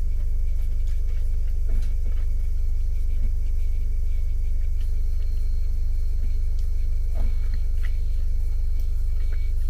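A steady low hum throughout, with a few faint light clicks of a spoon against a bowl or cup and quiet chewing.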